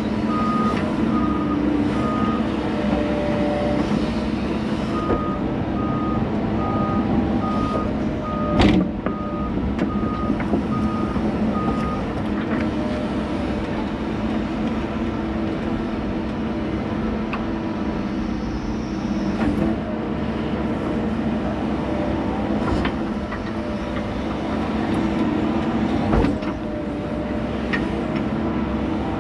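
Excavator's diesel engine and hydraulics running steadily, heard from inside the cab as the bucket spreads loose dirt. A backup alarm beeps steadily for the first twelve seconds or so, pausing briefly near the start. Two sharp knocks come about nine seconds in and near the end.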